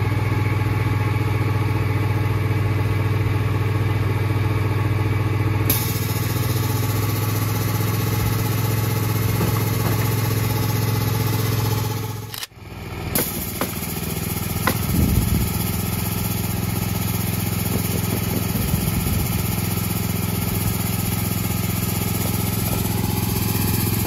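Small gasoline engine of the roofing equipment running steadily at a constant speed. It breaks off briefly about halfway through, then carries on, with a few faint knocks soon after.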